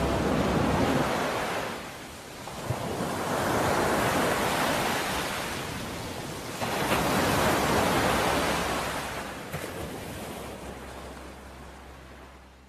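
Sea waves washing onto the shore in slow surges, about three swells rising and falling, fading out near the end.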